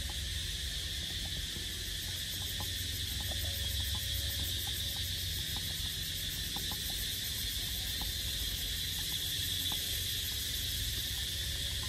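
Steady, high-pitched chorus of insects, with a faster even pulsing at the very top of the sound. A low rumble runs underneath.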